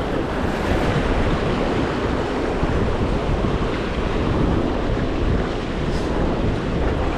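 Ocean waves and surf washing steadily, with wind buffeting the microphone.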